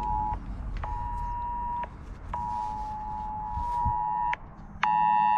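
Smartphone sounding the Emergency Alert test tone: the two-pitch attention signal in on-off blasts, a short one, then about one second, then about two seconds. Near the end it comes back much louder and harsher, with a low buzz underneath.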